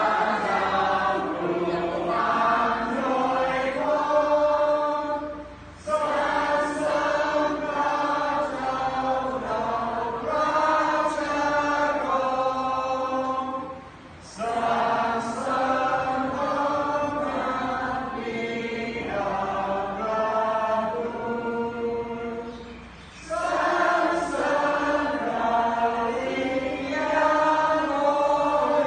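A group of people singing together in unison, a chant-like song in long phrases with three short breaks between them.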